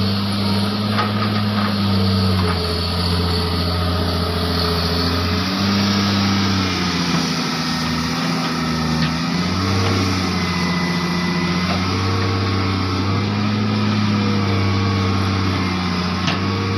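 Hitachi hydraulic excavator's diesel engine running steadily under load while its grapple lifts logs, the engine note sagging and recovering several times as the hydraulics strain: a machine that is struggling to lift the timber.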